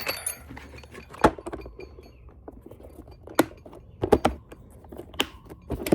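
Metal sockets and tools in a toolbox clinking and knocking as they are handled, in a handful of separate sharp clicks.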